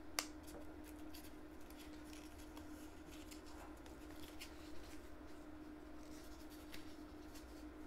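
Faint desk-handling noises: a sharp click just after the start, then a few soft ticks and rubs spread through, over a steady electrical hum.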